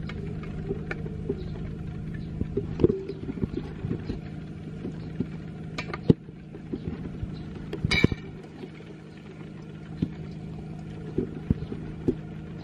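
Salad being tossed in a stainless steel bowl with a spatula and a spoon: scattered soft knocks and clinks against the bowl, with one ringing metallic clink about eight seconds in. A steady low hum runs underneath.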